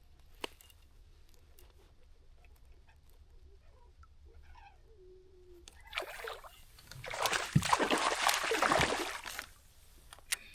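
A hooked bass splashing and thrashing at the water's surface for about three seconds, starting about six seconds in and loudest in the last part. A single sharp click about half a second in.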